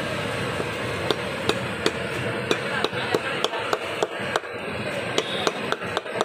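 Large butcher's knife chopping intestine into pieces on a wooden log block: sharp knocks of the blade striking the wood, about three a second, starting about a second in, over steady background noise.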